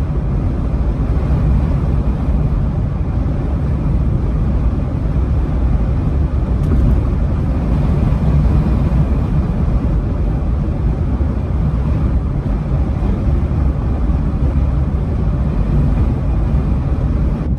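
2020 Jeep Gladiator driving in gusty 25–30 mph wind: a steady, loud low rumble of road, engine and wind noise.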